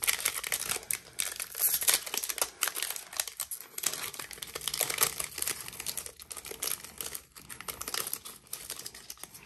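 Trading-card pack wrapper being torn open and crumpled in the hands: dense, continuous crinkling that starts suddenly.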